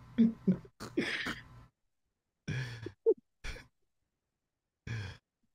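Men laughing softly in short, breathy exhalations and sighs, several in the first second and a half, then a few more spaced about a second or two apart.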